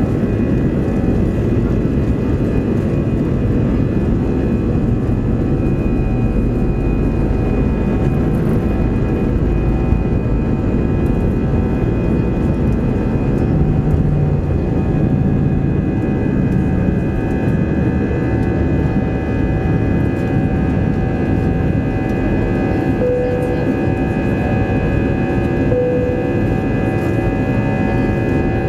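Airbus A320 jet engines at takeoff thrust heard from inside the cabin beside the wing: a loud, steady roar with high whining fan tones over runway rumble during the takeoff roll. In the second half the low rumble eases and the whine comes through stronger as the aircraft lifts off and climbs.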